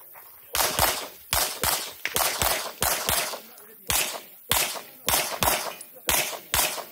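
Semi-automatic competition pistol fired rapidly, mostly in quick pairs of shots (double taps) with short gaps between pairs, some fifteen shots in all.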